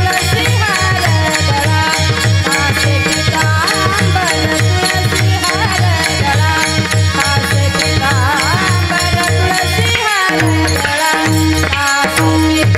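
Kirtan music: a pakhavaj drummed in fast, dense strokes, with clashing taal hand cymbals and a steady harmonium tone. A voice sings in places. The drumming breaks off briefly about ten seconds in, then carries on.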